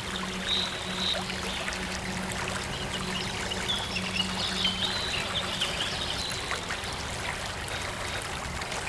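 Water running and trickling as a steady stream, with birds chirping high and briefly twice, the second time in a longer run of calls. A low synth tone hums under it and stops a little after halfway.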